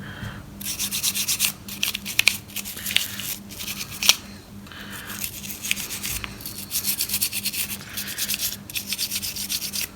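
Quick, repeated scrubbing strokes on a circuit board wet with alcohol cleaner, wiping away flux residue after resoldering, with brief pauses between runs of strokes.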